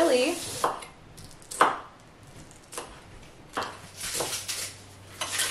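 Kitchen knife chopping green bell pepper on a wooden cutting board: single cuts about a second apart, then a quicker run of cuts near the end.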